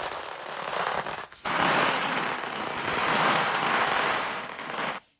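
A string of firecrackers going off in a dense, rapid crackle. It breaks off for a moment a little over a second in, resumes, and cuts off abruptly near the end.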